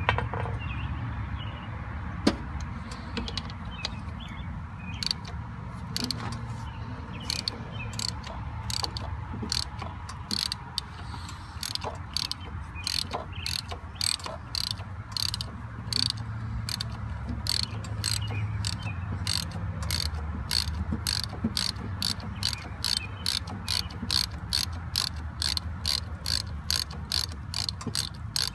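Hand ratchet clicking in quick runs, about two to three clicks a second, as a bolt is worked out of the tractor's air-conditioning compressor mount. The clicking starts about five seconds in, over a low steady rumble.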